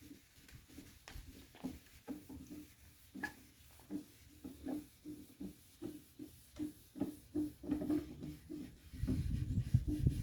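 Steel wool pad scrubbing the old wax coat off a wooden tabletop in quick back-and-forth strokes, about two to three a second. A louder low rumbling noise comes in near the end.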